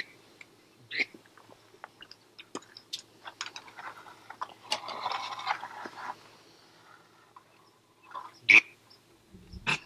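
Duck quacking: scattered short, sharp quacks, a loud one near the start and another close and loud about eight and a half seconds in, with a stretch of quicker, busier calling in the middle.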